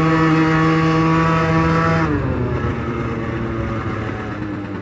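Sachs Speedjet RS scooter engine held at full throttle at a steady high pitch, then the throttle is closed about two seconds in and the revs fall away to a lower running sound.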